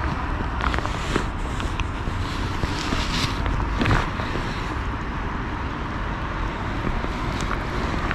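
Steady outdoor city rumble of traffic and wind, with a few short clicks and rustles scattered through it.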